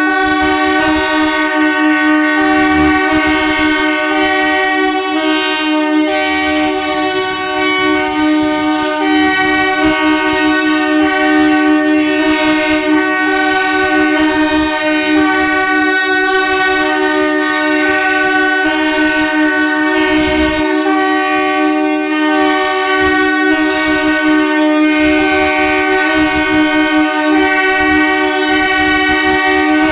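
Several electric train horns sounding together in one long, steady, unbroken chord, loud throughout.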